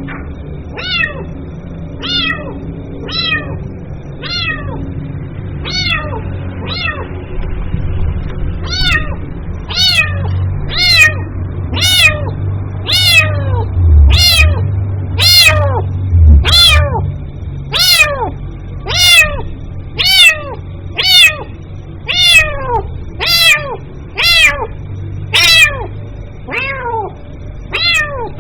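A kitten meowing over and over, calling for its mother: short calls, each falling in pitch, about one a second. The calls grow louder and come a little faster from about a third of the way in.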